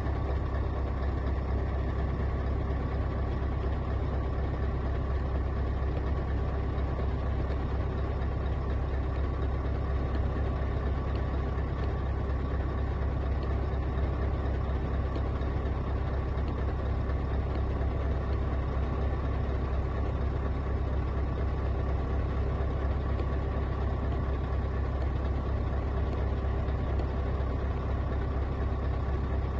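Scania R580's 16-litre V8 diesel idling steadily in neutral, heard from inside the cab as an even, deep drone.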